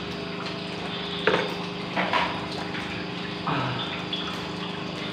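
Steady machine hum with a constant low tone, with a few brief louder noises over it.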